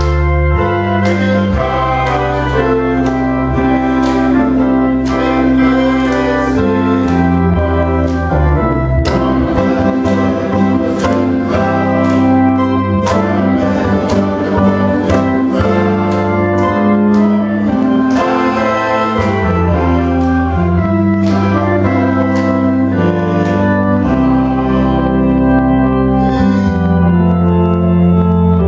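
Church organ playing a gospel hymn: held chords over a bass line that steps to a new note every second or two, with voices singing along and frequent light percussive hits.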